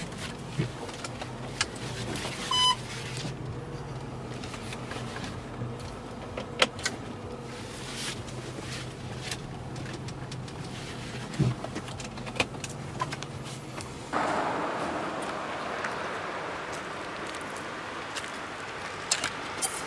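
Inside the cabin of a 2006 Range Rover Supercharged, a steady low engine and road hum with scattered clicks and knocks, and a short tone about two and a half seconds in. About fourteen seconds in the hum cuts out and gives way to a steady outdoor hiss.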